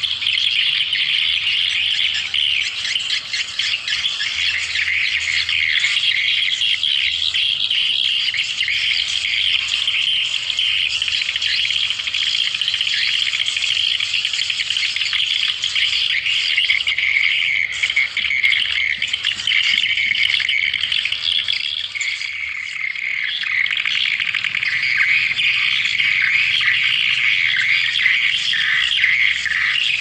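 Swiftlet calls: a dense, unbroken chatter of rapid high chirps and twitters. This is the swiftlet lure sound played to draw the birds to a nest house.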